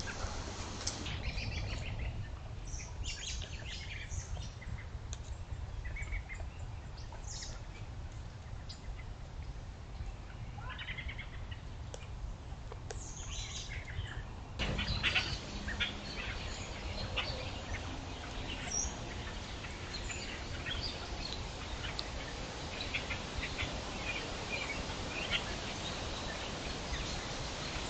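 Wild birds chirping and calling in short, scattered notes over a steady low rumble. The background rumble gets louder about halfway through, and the chirps become more frequent from there.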